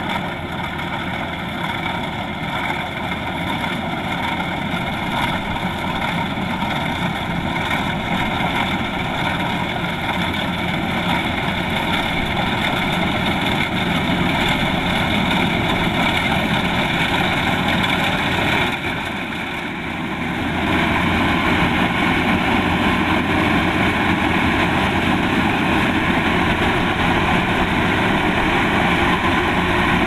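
Kubota DC-105X combine harvester running steadily, its diesel engine working. The sound dips briefly a little past halfway, then comes back louder.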